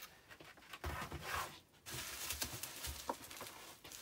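Bubble wrap and packaging rustling and crinkling as hands dig through a cardboard box of fireworks, with a light knock about three seconds in.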